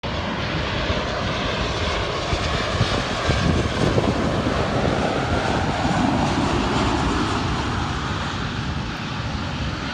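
Jet engine noise of a twin-engine Embraer E-Jet regional airliner on final approach and landing, steady throughout and easing slightly near the end.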